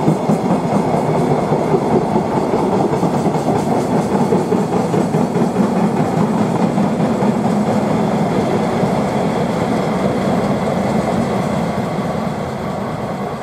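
Freight train's container flatcars rolling past at speed, wheels running over the rails in a continuous rumble. The noise dies away near the end as the last wagon goes by.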